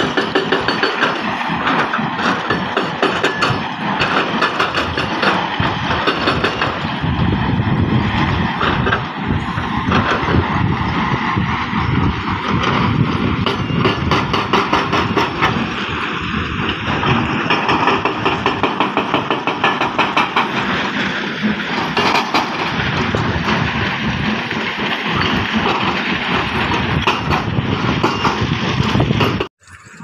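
Heavy diesel engines and machinery running loudly and steadily, with a dense rattling texture. The sound cuts off suddenly just before the end.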